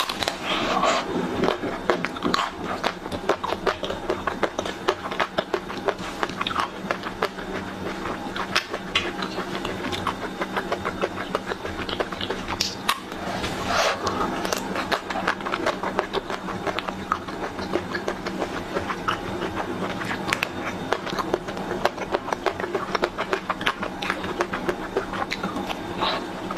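Close-miked biting and crunching into the crisp chocolate-and-nut coating of an ice cream bar, with chewing and mouth sounds: many quick crackles, heaviest about a second in and again about halfway, over a steady low hum.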